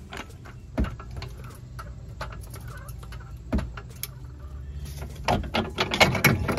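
Scattered clicks and knocks of metal parts and tools being handled while the transmission mount is worked loose, with a quicker run of clicks near the end, over a low steady hum.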